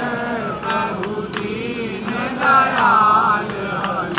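Voices singing a Hindu aarti hymn, with a sharp percussive strike about twice a second.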